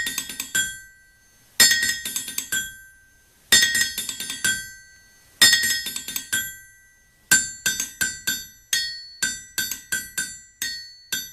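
Intro music of ringing metallic percussion: clusters of bright struck notes about every two seconds, then from about seven seconds in a steady beat of single strikes about twice a second.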